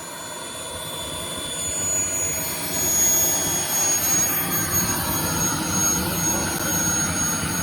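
Small model jet turbine running, a Kingtech 140 in a Carf BAE Hawk model: a rushing roar with a steady high whine over it, growing louder over the first three seconds.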